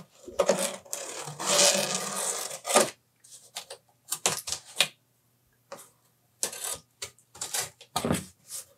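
Packing tape on cardboard boxes being slit with a utility knife and pulled up: a long ripping sound about a second in, followed by short scrapes and clicks of the knife and hands on the cardboard.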